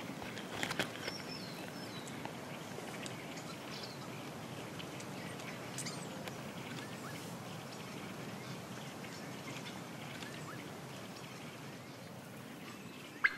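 Steady outdoor ambience hiss with a few faint, short bird calls, one of them a falling call about a second in, and a sharp click near the end.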